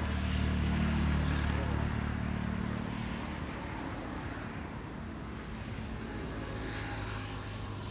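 A motor's low steady hum, loudest over the first two seconds and then easing off a little.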